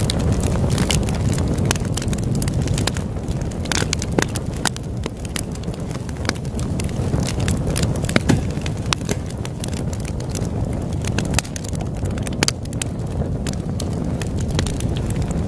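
Campfire burning, with frequent sharp, irregular crackles and pops from the burning wood over a steady low rush.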